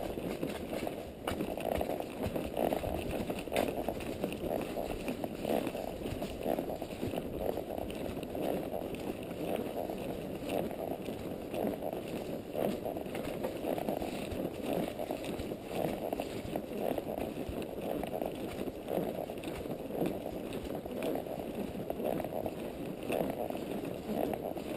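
Quarter Horse walking under a rider on a dirt trail: a steady, even rhythm of hoof falls with rustling and scraping.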